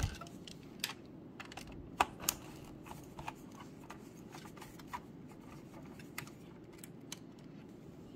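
Screwdriver clicking and tapping against the screws and sheet-metal chassis of a Synology DS1621+ NAS as the power supply's screws are taken out. The clicks are light and scattered, the sharpest about two seconds in.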